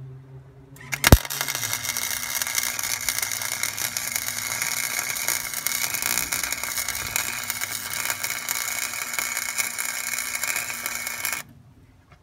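Electric arc welder tack-welding a bracket to the tractor frame: the arc strikes with a sharp snap about a second in, then crackles and hisses steadily for about ten seconds and cuts off suddenly near the end.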